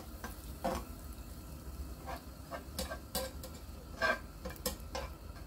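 Butter sizzling as it melts and foams in a nonstick frying pan, with a spatula scraping and tapping against the pan in irregular strokes.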